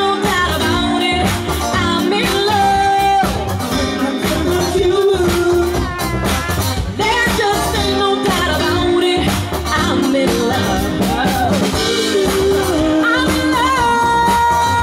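Live band playing an upbeat dance song, with drums keeping a steady beat, guitar, and lead singers singing the melody over it.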